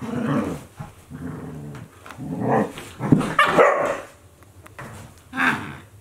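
Akita Inu dogs growling and barking in play-fighting, in a string of short growls and barks, loudest a little past the middle.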